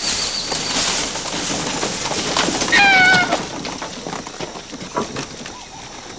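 A single short, high-pitched animal call that falls slightly in pitch, about three seconds in, over a steady background of rustling noise and faint clicks.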